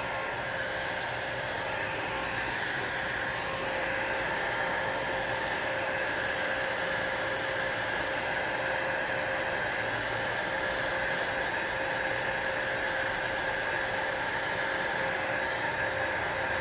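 Handheld hot-air blower running steadily: a constant rush of air with a steady whine, used to heat a phone's glass back cover to soften its adhesive. It gets slightly louder a few seconds in.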